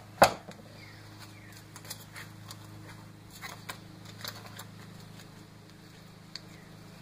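Scissors handled at a workbench: a single sharp knock just after the start, then scattered small snips and clicks. A steady low hum runs underneath.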